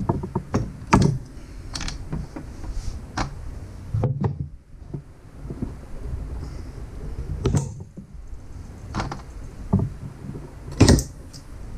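Plastic ignition coil-pack rail being worked loose by hand off the spark plugs of a Jeep Wrangler TJ's 4.0-litre straight-six: irregular clicks, knocks and plastic rattles, the loudest knock near the end.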